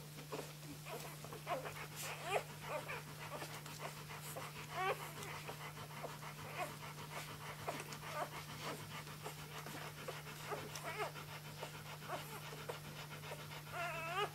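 Newborn flat-coated retriever puppies squeaking and whimpering in short high calls while they nurse, with a louder puppy squeal near the end. A steady low hum runs underneath.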